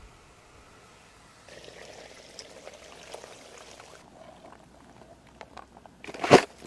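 Tea poured from a glass teapot, a steady trickle lasting about two and a half seconds. Then faint clicks as live crayfish are handled in a plastic bucket, and a loud sharp knock near the end.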